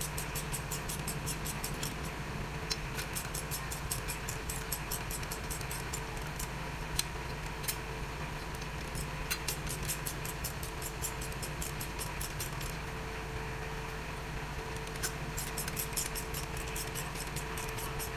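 Socket ratchet clicking rapidly in runs as the flywheel bolts are spun in on a Suzuki K6A engine, with a couple of sharper metal knocks, over a steady background hum.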